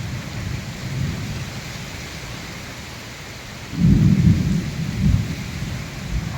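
Heavy cyclone rain falling as a steady hiss, with low rumbling surges, the loudest coming just before four seconds in and a shorter one about a second later.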